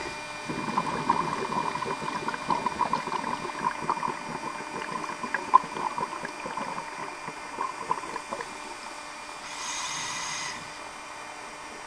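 A scuba diver breathing through a regulator, heard underwater. Exhaled air bubbles and crackles for most of the stretch, then about a second of inhalation hiss near the end.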